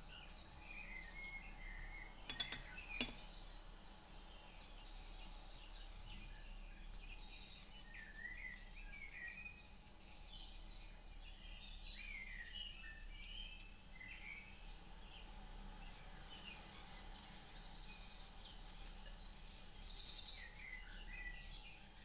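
Songbirds singing: a busy mix of short chirps and fast high trills, with a few sharp clicks about two to three seconds in.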